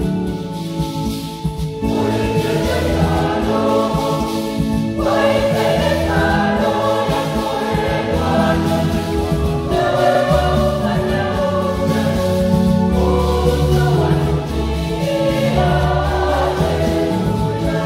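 Church choir singing a Swahili Catholic hymn in parts, with keyboard accompaniment and a steady bass line. The voices come in about two seconds in, after a short instrumental introduction.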